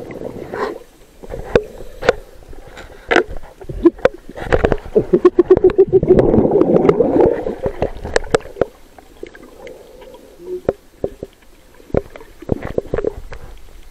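Underwater sound of a scuba diver's exhaled bubbles gurgling up past the camera. There are scattered clicks and knocks, and a loud rush of bubbles about five to eight seconds in.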